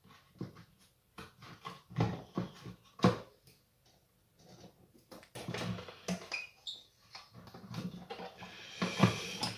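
Handling noise from a sandwich toaster's plastic housing being fitted back onto its metal plate: scattered knocks, clicks and rattles, the sharpest about two and three seconds in, busier in the second half.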